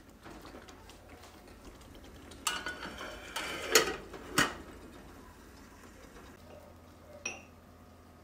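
Metal pot lid clattering as it is handled and set onto a saucepan, ending in two sharp clanks about four seconds in. Near the end, a single small ringing clink.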